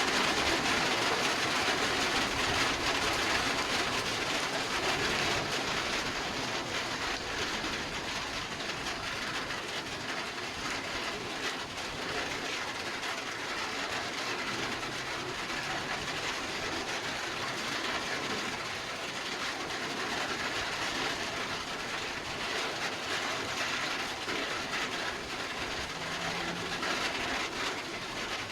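Heavy rain falling with strong wind, a steady dense hiss that is a little louder in the first few seconds.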